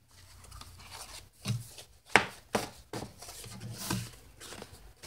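Stiff eco-printed paper pages rustling and sliding as a small stack is handled and leafed through, with irregular crisp rustles and a sharp crackle about two seconds in.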